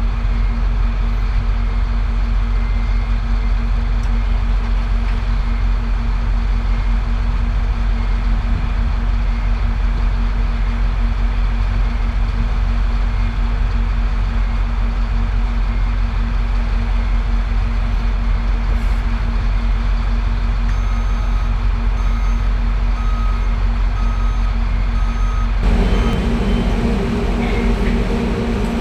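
Heavy construction machinery running with a steady low rumble and hum. In the second half, a reversing alarm beeps about once a second for several seconds. The sound changes abruptly near the end.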